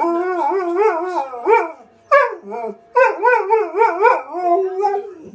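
Malamute-husky cross dog howling and "talking" in long, wavering, yodel-like phrases: one at the start lasting about two seconds, a short yelp just after, then another long phrase from about three seconds in.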